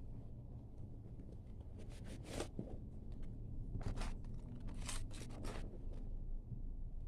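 Plaid fabric backpack and a cloth drawstring pouch being handled as the pouch is tucked into a front pocket: a few short, faint rustles and scrapes of fabric, most of them between about two and six seconds in.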